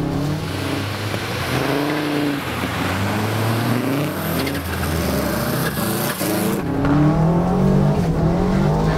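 Subaru rally car's turbocharged flat-four revving up and down as it is driven hard on studded tyres over ice, with a hiss of tyres and ice spray. About two-thirds of the way in the hiss stops suddenly and a steadier engine drone remains.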